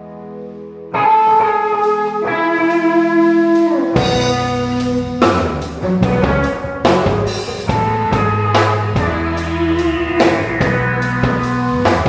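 A small band playing: a guitar comes in loudly about a second in, then drums and bass join about four seconds in with a steady beat.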